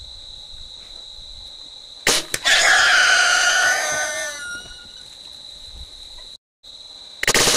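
Crickets trilling steadily. About two seconds in comes a sharp snap of a bow shot, then a wild boar squeals loudly for about two seconds after being hit by the arrow. Near the end another loud burst of sound begins.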